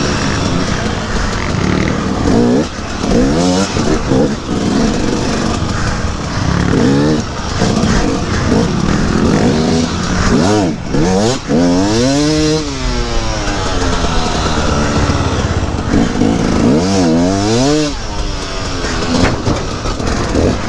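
KTM 250 EXC two-stroke dirt bike engine close up, revving up and falling back repeatedly as it is ridden over enduro obstacles.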